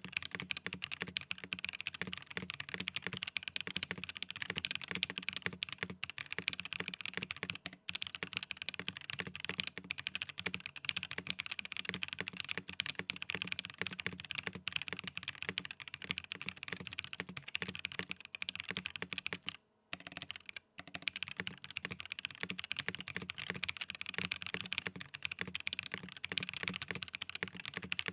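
Fast, continuous typing on a custom mechanical keyboard: the SE Kage with an aluminium top-mounted plate, Prevail Nebula linear switches and CK PBT keycaps. The keys clack densely, with brief pauses about eight and twenty seconds in.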